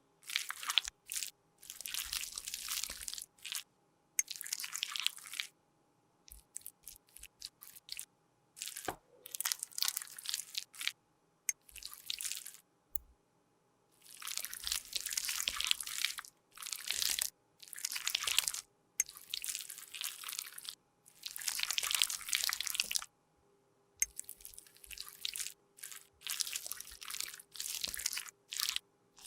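Makeup being scraped and crushed with a tool: repeated crunchy scraping strokes, each lasting from about half a second to two seconds, separated by brief pauses.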